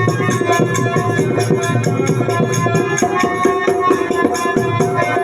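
Instrumental music: held melodic notes over fast, rhythmic hand-drum playing with jingling percussion.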